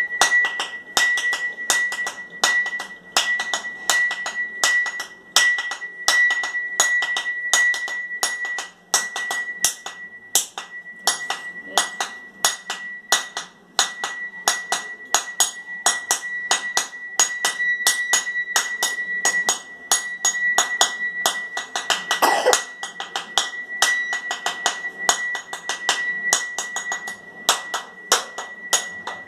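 Back of a steel knife blade repeatedly rapping a coconut shell around its middle, about three sharp knocks a second, to crack it open along a line. One harder knock rings longer about 22 seconds in.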